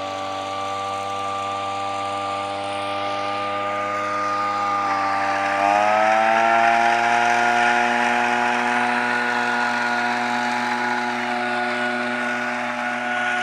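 Small engine of a motorised tea harvester running steadily at low speed, then revving up about five to six seconds in and holding the higher speed.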